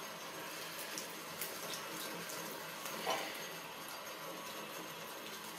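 Bathroom sink tap running steadily into the basin while a puppy is rinsed under it, with a brief louder sound about three seconds in.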